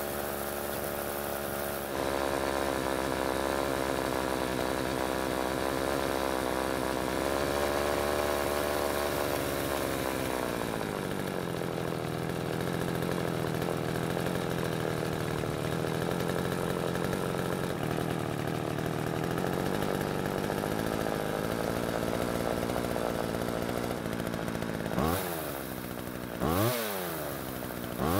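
McCulloch Mac 3200 two-stroke chainsaw engine running at a fast idle, high enough to keep the chain moving. About ten seconds in the idle drops to a lower, steady speed as more fuel is added at idle through the carburettor's mixture screw. Near the end it is revved quickly a few times.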